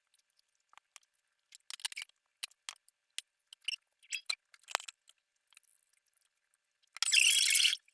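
Utensils clinking and scraping against plates and a cup at breakfast, in scattered light clicks, followed near the end by a loud hiss of just under a second.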